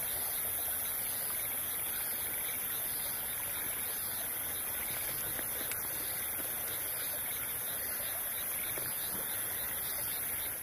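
Steady rushing of a flowing stream, even and unbroken, with a continuous high hiss over it.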